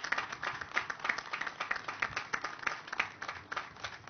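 Small outdoor audience clapping in applause, dying down near the end.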